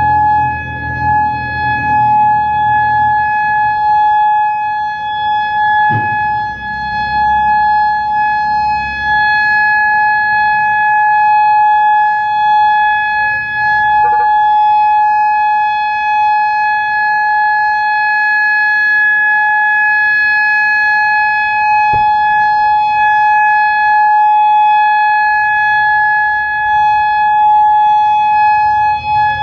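Federal Signal Modulator 6048 electronic outdoor warning siren sounding a steady alert tone. It is loud and holds one unchanging pitch, with no rise or fall.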